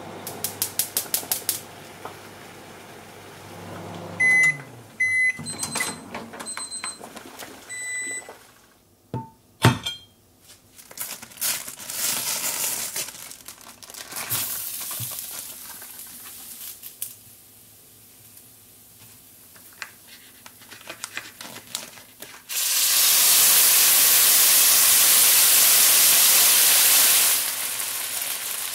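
Panasonic microwave oven finishing its run: the hum winds down about four seconds in and it beeps several times, followed by a couple of sharp clicks and rustling of a plastic food bag. Near the end, French fries hit a preheated iron sizzle plate and sizzle loudly for about five seconds.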